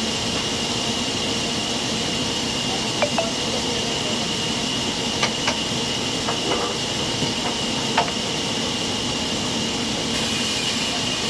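Sawmill machinery running steadily with a constant high whine and low hum, with a handful of sharp clicks and knocks between about three and eight seconds in.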